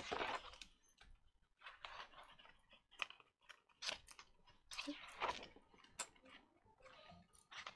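Pages of a colouring book being turned by hand and smoothed flat: short crinkling paper rustles about every second.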